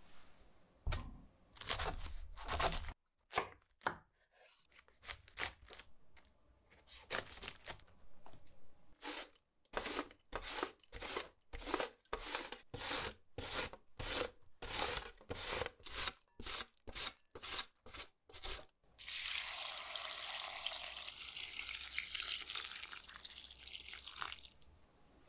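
Cabbage pushed back and forth over a plastic mandoline slicer, a crisp shredding rasp with each stroke at about two strokes a second. Near the end, water pours steadily into a glass bowl of shredded cabbage.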